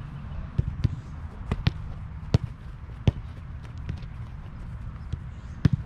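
A string of sharp ball impacts at irregular intervals, some in quick pairs: a soccer ball being struck and caught or bouncing during goalkeeper drills.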